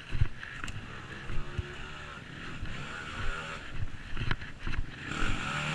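Trail motorcycle engine running, its pitch rising and falling with the throttle, with wind hiss and a few low thumps.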